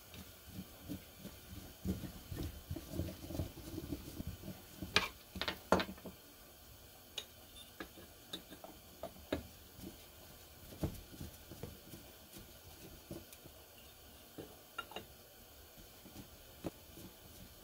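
Scattered light clicks, taps and handling noises of metal carburetor parts as the Kawasaki Ninja 500R's twin-carburetor bank is worked on by hand with a screwdriver. The handling is busiest early on, with a pair of sharper clicks about five to six seconds in.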